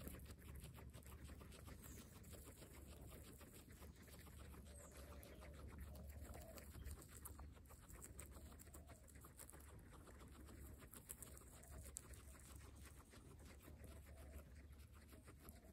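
Guinea pigs chewing fresh grass and lettuce up close: a fast, faint run of crunching clicks.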